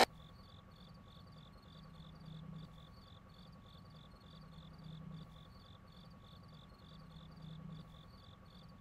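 Crickets chirping faintly in an even, repeating rhythm, over a low hum that swells and fades every few seconds.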